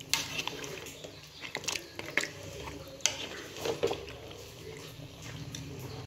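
A metal ladle stirring curry in a metal cooking pot, clinking and scraping against the pot a handful of times, over a steady low hum.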